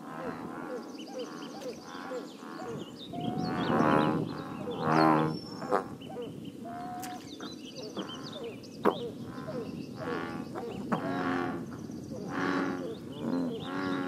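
American bullfrogs croaking: a chorus of deep calls repeated throughout, the two loudest about four and five seconds in and several more close together near the end.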